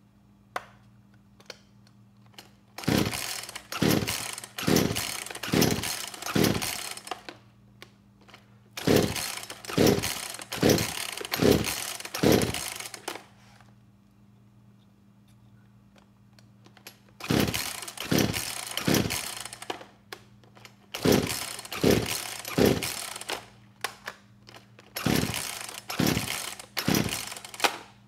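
Poulan Pro PP4218AVX 42cc two-stroke chainsaw being pull-started: five sets of three to five quick starter-cord pulls, the engine turning over without firing once. The owner puts the no-start down to the freshly cleaned carburetor's settings: he bumps the idle and turns the low-speed jet in afterwards.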